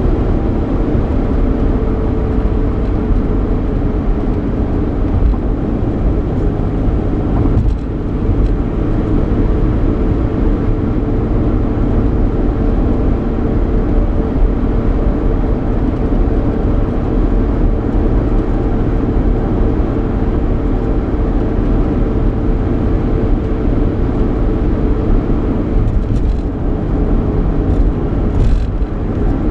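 Cabin noise inside a 3.8-litre V6 Ford Mustang on the move: a steady engine hum over a constant low rumble of road and tyre noise, with a brief dip about eight seconds in.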